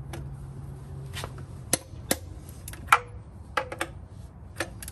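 Metal clinks and clacks of a socket and torque wrench being fitted onto a wheel's lug nuts: half a dozen separate sharp knocks, the loudest about three seconds in.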